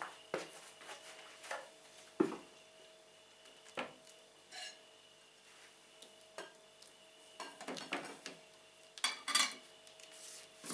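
Dishes being handled on a table: irregular light clinks and knocks as a glass plate is moved and set down, with a sharp knock about two seconds in and a quick pair of sharper clinks about nine seconds in.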